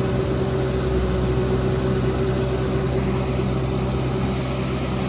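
Combine harvester engine running steadily, a constant low hum.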